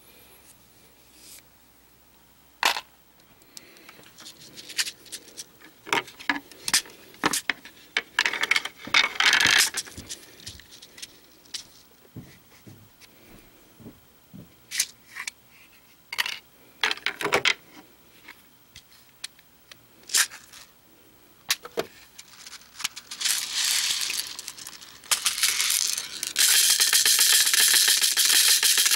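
Small pistol primers rattling on a clear plastic primer flip tray, poured out and then shaken steadily for the last few seconds so they settle cup-side up. Before that, scattered clicks and short rattles of the primer box and tools being handled.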